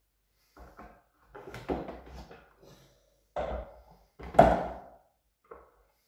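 Plastic knocks and clunks from a Bosch GL-20 canister vacuum cleaner being handled while switched off, as its tube and body are moved about. There are a handful of separate thuds, the loudest about four and a half seconds in.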